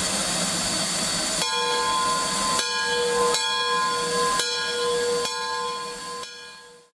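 Steam hissing from the Dixiana Shay geared steam locomotive. From about a second and a half in, its multi-note chime whistle sounds in a string of blasts about a second apart, over the hiss. The sound fades out near the end.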